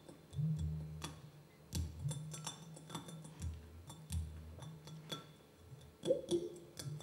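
Sparse, quiet live percussion music: light clicks and taps over low held notes that start every second or so.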